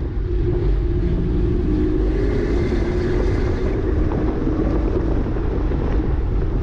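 2009 Porsche Cayman S's flat-six engine running hard on track, a steady loud note with low rumble, its pitch rising and falling slightly with throttle and gear.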